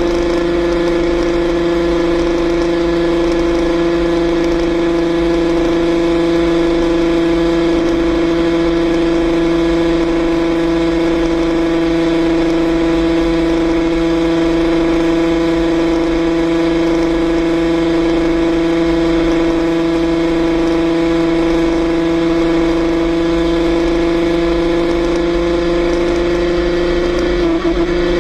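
Yamaha RXZ's 135 cc two-stroke single-cylinder engine running at a steady, high pitch, held at constant revs while cruising at speed.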